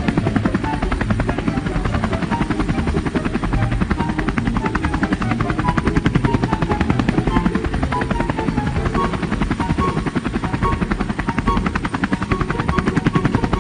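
A steady, fast rhythmic thrumming of a cartoon vehicle's motor sound effect, like a helicopter rotor, running throughout without pause.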